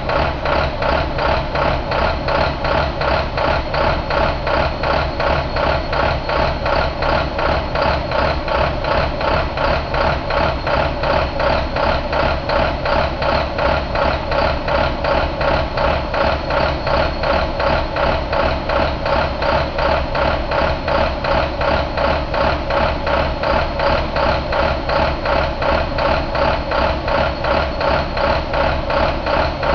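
International MaxxForce DT inline-six diesel engine running on a test stand at a steady idle, its firing pulses coming in an even, unchanging rhythm.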